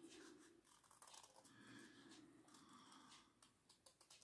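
Faint snipping of scissors cutting through a folded, doubled sheet of paper, in short irregular cuts.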